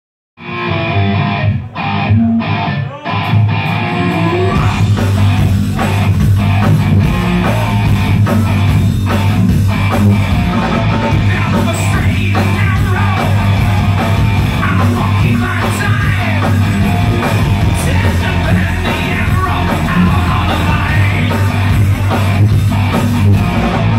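Heavy metal band playing live: distorted electric guitars, drums and a singer. The band stops short a couple of times in the first few seconds, then plays on without a break.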